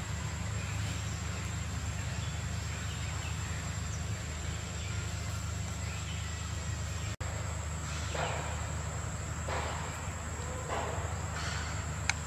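Outdoor ambience: a steady high-pitched insect drone over a low steady rumble. After a brief dropout about seven seconds in, a few short sounds come about a second apart.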